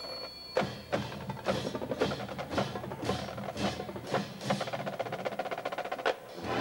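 Marching band playing a percussion-driven passage: drums and the full band strike together in sharp accented hits about twice a second, after a short held high tone at the start.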